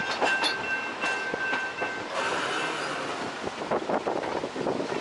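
Puffing Billy narrow-gauge steam train running along the line, with irregular clicks and knocks of the carriages over the track. A steady high two-note tone sounds for the first two seconds, then gives way to a rush of noise.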